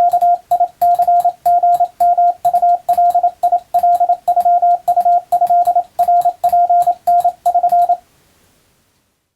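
Morse code (CW) practice signal: a single steady tone keyed on and off in dots and dashes, with a faint click at the start of each element. It stops about eight seconds in.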